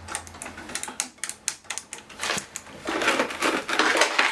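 Quick, irregular clicks and taps of hard objects being handled, thickening into a denser clatter about two seconds in.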